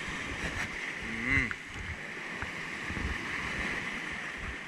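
Choppy sea surging and breaking against a rocky shoreline, a steady wash of surf.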